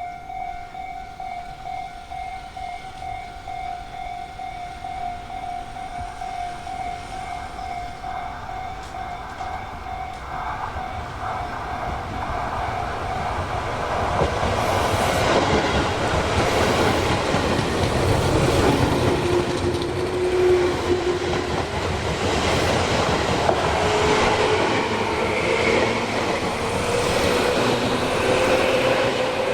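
A Tobu Tojo Line electric train passing close by, its wheels clattering on the rail joints, growing louder about halfway through. Near the end a motor whine rises in pitch. Before the train arrives, a steady tone sounds.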